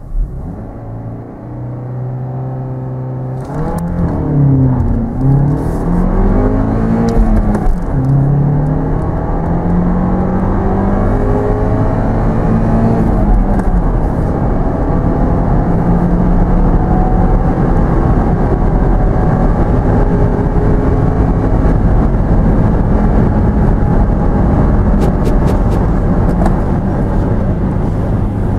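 Turbocharged 2.0-litre four-cylinder engine of an Opel Insignia Country Tourer heard from inside the cabin, held at steady revs at standstill, then launching hard at full throttle about three and a half seconds in. The pitch climbs and drops with quick gear changes of the manual gearbox, then rises slowly through a long pull, with tyre and wind roar building as speed increases.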